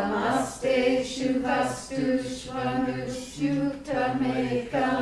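A chorus of men's and women's voices chanting a Sanskrit verse line together in unison, in phrases of about a second each, repeating the line just given by the lead chanter.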